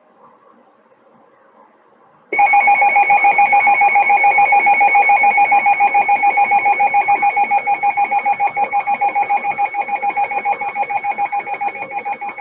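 Weather radio alert tone: a loud, rapidly pulsing electronic alarm that starts about two seconds in and sounds steadily for about ten seconds before cutting off. It signals that a new warning is about to be broadcast.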